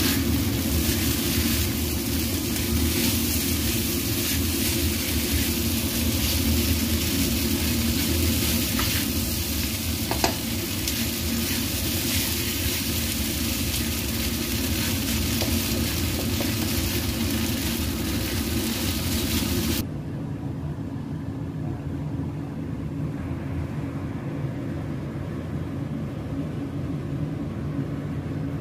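Scallops and snow peas sizzling in a hot wok as they are stir-fried with a spatula, over a steady low hum. About twenty seconds in the sizzle cuts off suddenly, leaving only the low hum.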